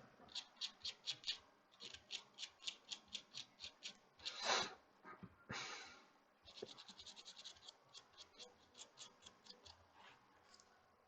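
Faint rhythmic scrubbing on a smartwatch circuit board, short strokes about three to four a second with two longer, louder rubs about halfway through, cleaning off corrosion left by liquid damage.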